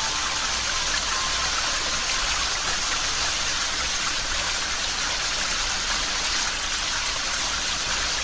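Steady rushing water with an even, unbroken hiss.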